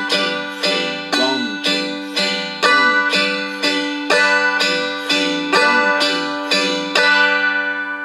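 Seagull M4 spruce dulcimer, tuned G-D-G, strummed on a G chord with one finger in a waltz pattern: down on the one, up on two and three, about one bar a second, over ringing drone strings. The last strum comes about seven seconds in and the chord rings on.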